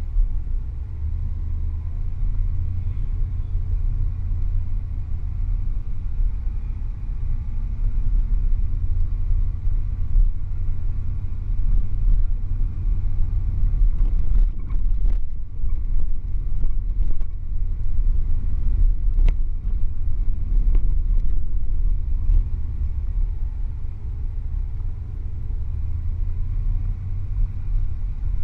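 Car driving slowly on city streets, heard from inside the cabin: a steady low rumble of engine and road noise, with a few short knocks in the middle stretch.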